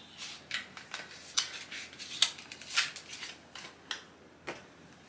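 A cardboard makeup box being opened by hand: irregular scrapes, rustles and small tearing sounds of cardboard and paper as the packaging is pulled apart. The handling sounds thin out in the last second or so.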